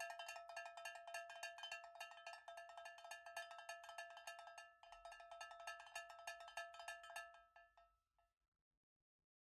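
A rapid run of bright, bell-like metallic notes, several strikes a second, ringing together as a chiming jingle. It dips briefly about halfway and fades out shortly before the end.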